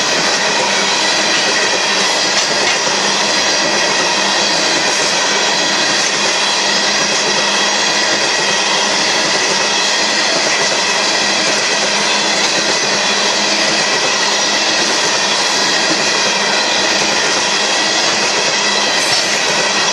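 Tank cars of a BNSF manifest freight train rolling past at steady speed: a continuous loud noise of steel wheels on rail, with a steady high-pitched wheel squeal running through it.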